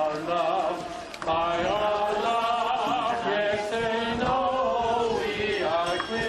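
Chanting voice holding long notes that bend and waver in pitch, breaking off briefly about a second in.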